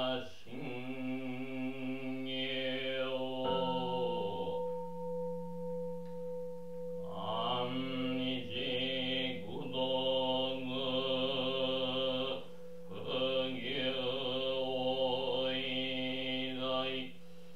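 A lone male voice chanting a Buddhist sutra in a steady, near-monotone recitation. About three and a half seconds in, a temple bowl bell is struck once and rings on through a pause in the chanting. The chanting resumes about seven seconds in, with short breath breaks later.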